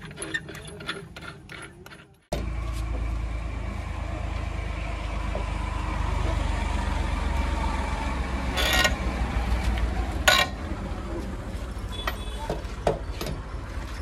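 Light metallic clicking and jingling, then a heavy diesel engine of loading machinery cutting in suddenly about two seconds in and running steadily with a deep drone. Two sharp metallic clanks come near the middle.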